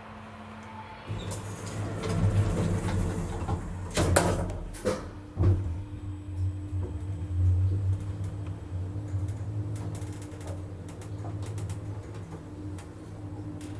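1961 Schindler elevator in operation: mechanical clunks and clicks about four to five and a half seconds in, then the machinery settles into a steady running hum.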